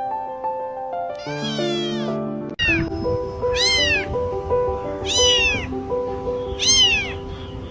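Kitten meowing four times, high-pitched, each meow rising then falling in pitch; the last three come about every second and a half. Background music plays throughout.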